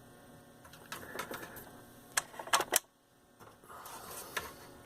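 A run of sharp clicks and rattles, as of equipment controls being worked by hand. The loudest clicks come a little after two seconds in, followed by a brief drop to near silence and then softer clicking.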